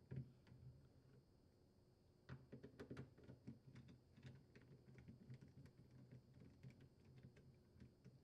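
Faint, irregular small clicks and ticks of a screwdriver turning out the screws of a plastic refrigerator door latch holder, with a soft knock at the start.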